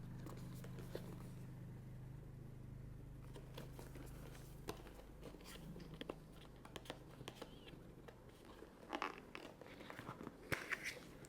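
Packaging handled and opened by hand: scattered clicks, taps and rustles, getting busier and louder about nine seconds in, over a low steady hum that fades out about two-thirds of the way through.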